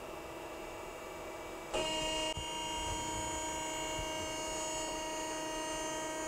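Hydraulic power unit of a roll bender humming, then about two seconds in stepping up to a louder steady whine as the hydraulic tilt cylinder swings the roll head from upright to flat. There is a small click just after the whine starts.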